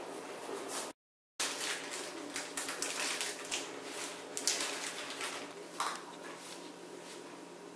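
Brief steady hiss of syrup boiling in a pan, then, after a short break in the sound, baking paper rustling and crinkling as it is peeled off a baked sponge cake, with irregular light clicks and taps that fade toward the end.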